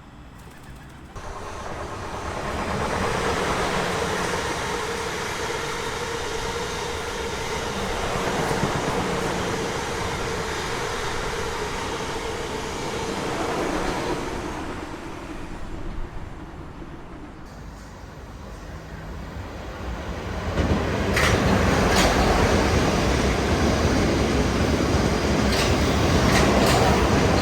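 A train running through the station: steady rail running noise that builds about a second in, with a steady tone through the first half. It grows louder again over the last several seconds, with a few sharp clacks of wheels over rail joints.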